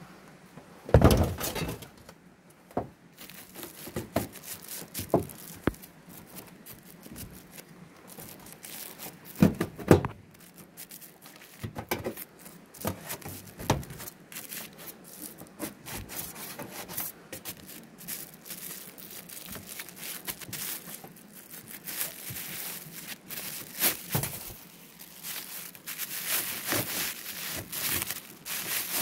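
Hands working plastic sheeting around a metal chimney pipe on a sheet-metal roof: crinkling and rubbing, with scattered knocks and two loud thuds, about a second in and about ten seconds in. Near the end, quick rasping strokes of a handsaw begin.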